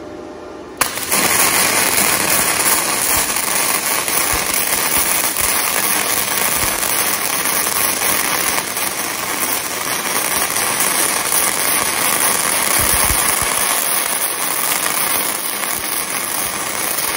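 Flux-cored (gasless) wire welding arc from a Weldinger MEW 180 miniSYN inverter welder, crackling and sizzling steadily through one long bead with the penetration (voltage) setting raised to +1. The arc strikes suddenly about a second in and cuts off abruptly at the end.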